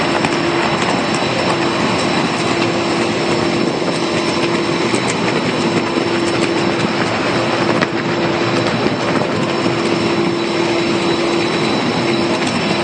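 Steady roar of strong wind and rough, whitecapped sea on an offshore platform, with a steady machinery hum running underneath.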